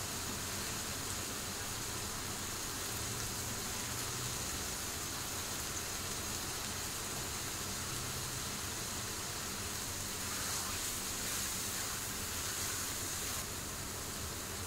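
Carrot halwa with eggs cracked into it sizzling in a non-stick frying pan: a steady hiss that drops slightly near the end.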